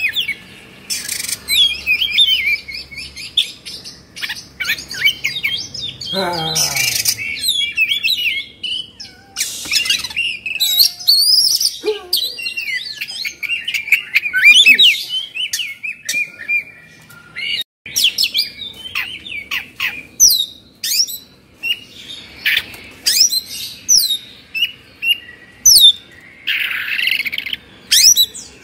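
Oriental magpie-robin (kacer) singing a rapid, unbroken stream of varied whistled and chattering phrases, with several short harsh rasps among them. The bird is in the agitated, fired-up singing state that kacer keepers call 'emosi' or 'kongslet'.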